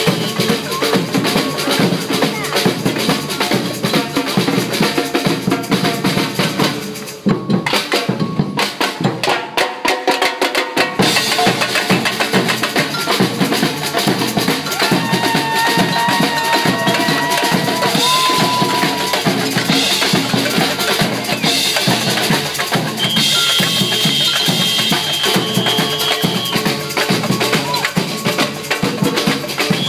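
Samba-style percussion band playing a fast, steady groove on surdo bass drums, metal-shelled snare drums and cymbal. About seven seconds in the deep drums drop out for a few seconds, then the full band comes back in, with a few long high held tones over the drumming later on.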